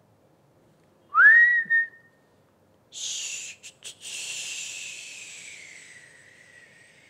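A man whistles a short note that slides up and holds. From about three seconds in comes a longer, breathy whistled hiss that glides down in pitch and fades away.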